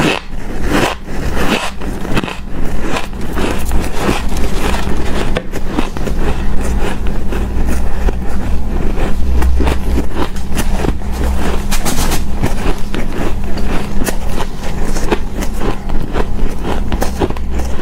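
Shaved ice crunching up close as it is bitten and chewed: a dense, continuous run of crisp crackles and snaps.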